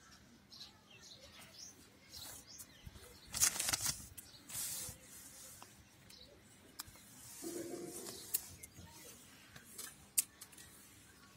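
Paper rustling and handling as exam sheets are shifted and a page is turned, loudest about three and a half seconds in, with a sharp click near the end.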